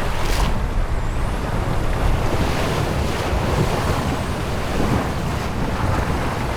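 Wind buffeting the microphone over the rush of sea water on the open ocean, a steady heavy noise with no clear engine note.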